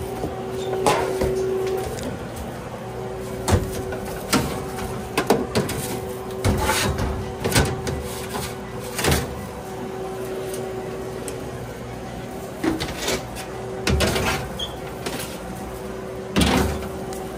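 Scattered knocks and clatter of doors, lids and containers being handled behind a sandwich counter, over a steady hum that breaks off now and then.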